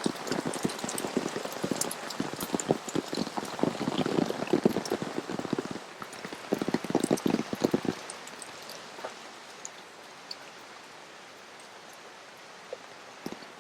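Heavy rain falling, with a dense run of big drops hitting close by for about the first eight seconds, then settling to a quieter, steady rain hiss with only scattered drops.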